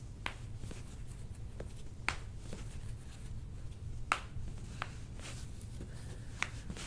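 Neck and upper-back joints cracking during a chiropractic adjustment: a run of short, sharp pops and crunches, the clearest three about two seconds apart, over a low steady room hum.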